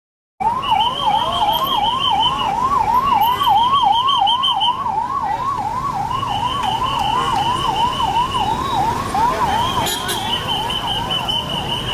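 Vehicle siren in a fast yelp, its pitch sweeping up and down about three times a second. A second, higher-pitched tone cuts in and out over it. Both start abruptly just under half a second in.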